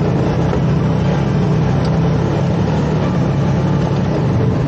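Large adventure motorcycle engine running at a steady pace while riding.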